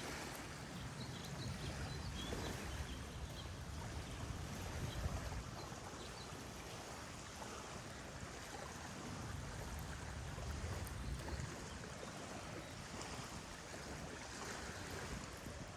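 Steady rushing of flowing water with a low, uneven rumble underneath. A few faint bird chirps come in the first few seconds.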